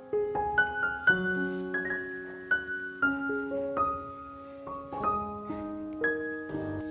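Background piano music: a gentle melody of struck notes that ring on and overlap.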